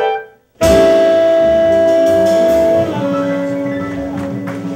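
Small jazz band of trumpet, saxophone, piano, double bass and drums hitting a final chord about half a second in after a brief pause. The chord is held for about two seconds, then the top note cuts off while lower notes ring on and slowly fade as the tune ends.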